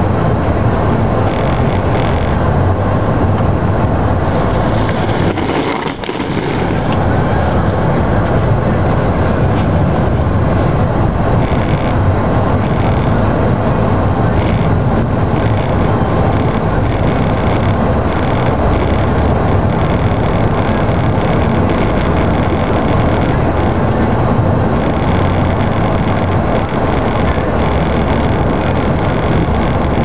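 Steady road noise of a car driving on a snow-covered road, heard from inside the cabin: a low engine and tyre rumble with a constant hiss. It dips briefly about six seconds in.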